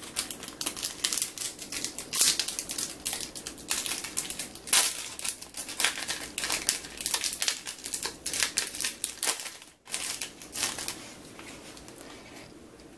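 Metallic foil wrapper of a 2015 Topps Football card pack crinkling and crackling as it is torn open by hand, in quick irregular rustles that die down about eleven seconds in.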